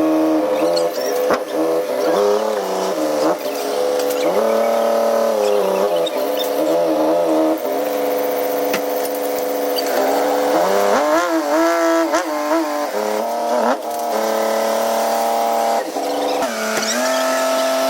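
Excavator's diesel engine running under hydraulic load, its pitch rising and falling again and again as the machine works.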